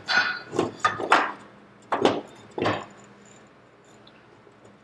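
About six short metal clinks and knocks in the first three seconds, from a Dodge Ram front axle shaft and bearing being settled by hand into the passenger-side axle housing on a workbench.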